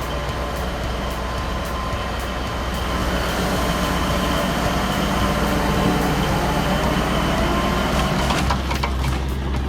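Heavy vehicle engine running steadily with a constant pitched drone, growing a little louder a few seconds in. A series of sharp ticks or knocks comes near the end.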